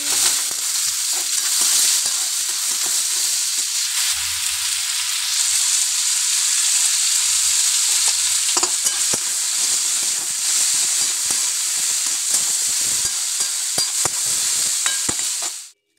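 Julienned potatoes sizzling steadily as they fry in hot oil in a metal wok, with a metal spatula scraping and clicking against the pan as they are stirred. The sizzle cuts off suddenly near the end.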